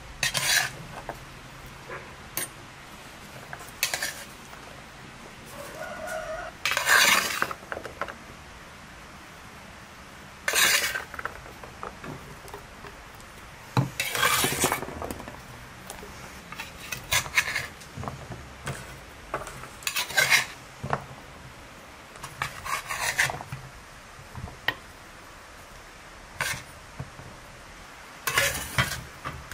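Handfuls of chopped vegetables being dropped into an earthenware clay cooking pot: about a dozen short bursts of clattering and knocking, with pauses between them.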